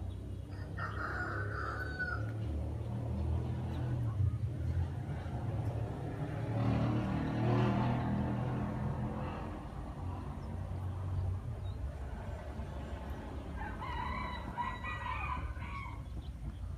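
A rooster crows near the end, a call of about a second and a half, with a shorter call about a second in. A steady low rumble runs underneath and grows louder for a few seconds in the middle.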